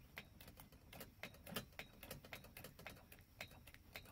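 Hand pump on a Coleman lantern's fuel tank being worked to pressurise the tank: a run of faint, irregular clicks, a few a second, as the plunger strokes.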